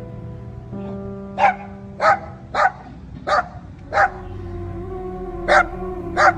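A dog barking in seven short single barks, with a pause of about a second and a half before the last two. Background music of sustained tones plays throughout.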